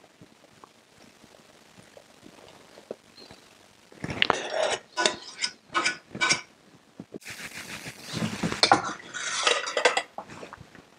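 Metal spoon scraping and clinking against a stainless steel saucepan as browned butter is scraped out of it, in quick runs of strokes from about four seconds in, with a short hiss about seven seconds in.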